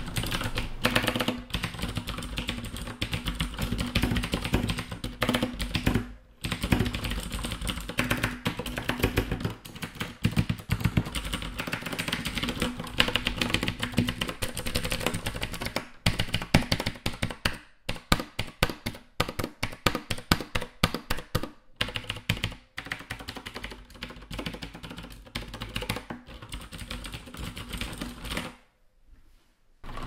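Typing on a Razer BlackWidow mechanical keyboard with clicky Cherry MX Blue key switches: a dense stream of key clicks with a few short pauses, stopping near the end.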